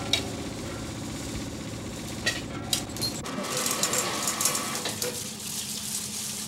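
Fishing boat engine running steadily, with a few short clanks. About three seconds in the sound changes to a hiss with metallic clicking over a steady hum, as a fish hoist works at the wharf.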